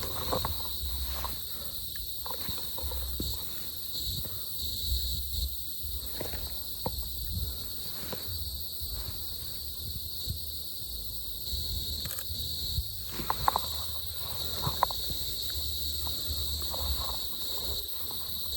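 Steady high-pitched insect chorus, with irregular footsteps and small crunches and knocks underneath.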